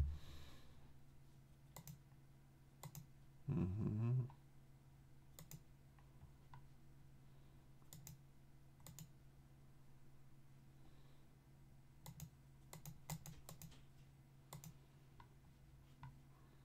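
Computer mouse and keyboard clicking now and then, a dozen or so separate clicks, some in quick runs of two or three, over a steady low hum. About three and a half seconds in, a louder low sound lasting under a second.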